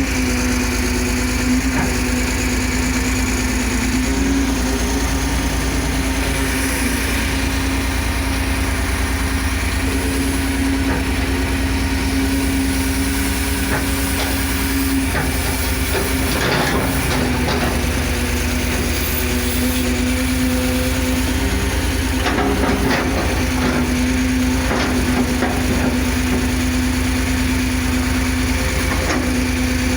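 Caterpillar 330 CL hydraulic excavator's diesel engine running steadily under digging load, its pitch sagging briefly now and then. Several clunks and scrapes from the bucket working in marl come about halfway through and again near the end.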